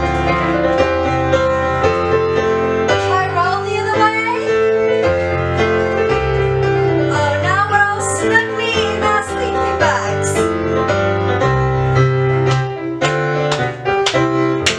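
Instrumental piano music for a movement class: a melody over changing bass notes.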